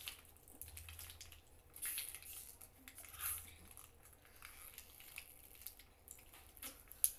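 Faint slurping and splashing of water as people drink from bowls, with louder slurps about two seconds and three seconds in.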